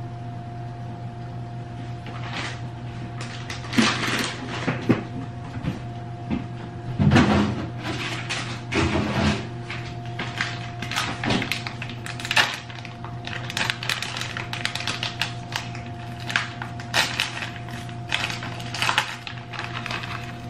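Kitchen handling noise: irregular knocks, taps and packaging rustles as items and a plastic bag of shredded cheese are handled on the counter, with heavier thumps about seven and nine seconds in. A steady low hum runs underneath.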